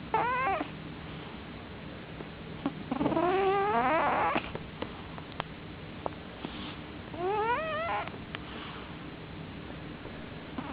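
Sleeping cat snoring very loud, three whistling snores that rise and waver in pitch, roughly every three and a half seconds, the middle one the longest.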